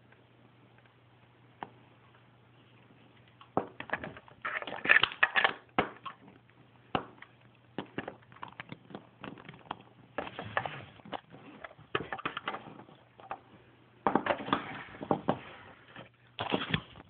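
Small plastic toys being handled: irregular clicks, taps and rustling in several clusters, the first and loudest about four to six seconds in, with others near ten, fourteen and sixteen seconds. A faint steady low hum runs underneath.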